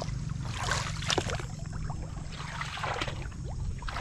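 Water splashing and sloshing in a shallow muddy pond, in short irregular bursts, over a steady low hum.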